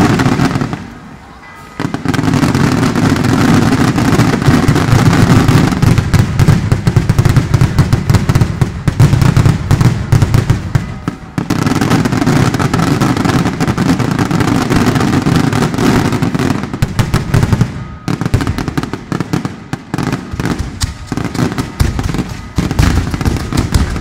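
A rapid, dense barrage of fireworks and firecrackers going off, shooting out paper streamers and coloured smoke, with a short lull about a second in.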